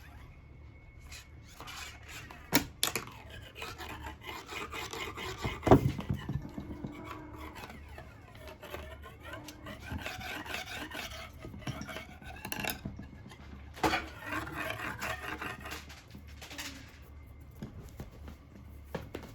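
Cats scratching and pawing at a carpet, its surface rubbing and rasping under their claws, with three sharp thumps as they pounce, the loudest about six seconds in.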